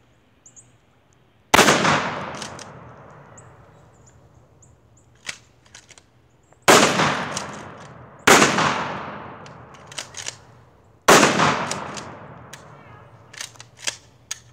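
Four shotgun blasts, each trailing off in a long echo over a couple of seconds, the second and third about a second and a half apart. Fainter sharp clicks and knocks fall between the shots.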